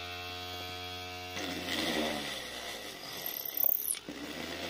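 Homemade drill built from a 775 DC motor running free at full speed with a steady whine, then about a second and a half in the bit goes into a wooden block and the sound turns rougher as it drills.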